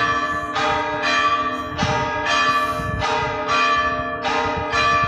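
Bells pealing in quick succession, a new strike roughly every two-thirds of a second, with each stroke ringing on into the next.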